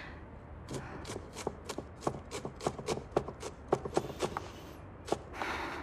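Kitchen cleaver chopping vegetables on a wooden cutting board: a quick, slightly uneven run of knocks, about four a second.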